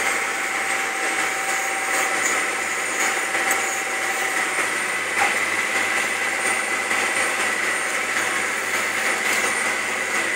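Tractor engine running steadily under load while pulling a disc through the soil, heard from inside the cab as an even drone with a faint steady whine.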